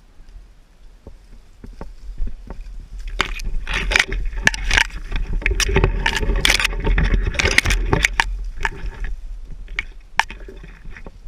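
A run of irregular knocks, scrapes and rustling over a low rumble, building up and loudest through the middle stretch before thinning out near the end.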